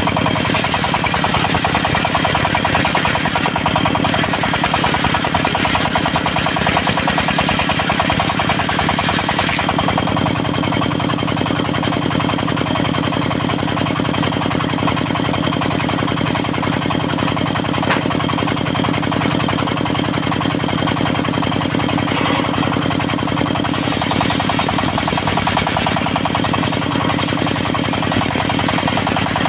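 Diesel engine driving a portable circular sawmill, running steadily with a fast knocking beat. About ten seconds in the sound changes, with less hiss and a stronger low hum.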